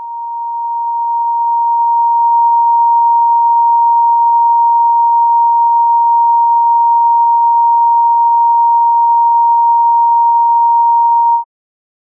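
A steady, pure electronic sine tone of about 936 Hz, just under 1 kHz. It fades in over the first couple of seconds and cuts off abruptly near the end.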